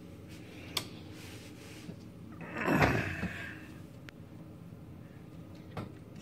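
Handling noise from an old record player: a small click, then a short sliding scrape a couple of seconds in, the loudest sound, and another click near the end.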